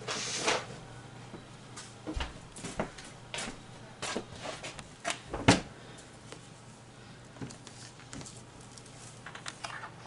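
Scattered light knocks and clicks of small objects being handled and set down on a work desk, the loudest about five and a half seconds in.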